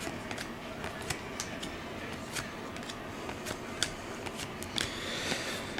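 Football trading cards being handled and flipped through, sliding against each other with scattered short clicks and rustles.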